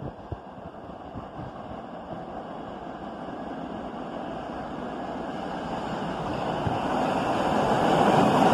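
R68A subway train approaching on the express track, its rumble growing steadily louder as it nears.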